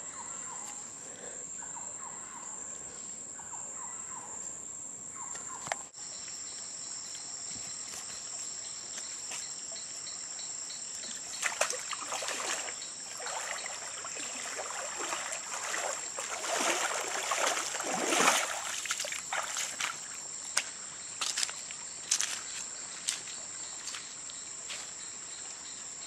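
Insects in tropical jungle making a steady, high-pitched drone, with a second, slightly lower drone joining after a brief break about six seconds in. Irregular rustling and crunching come and go through the middle stretch.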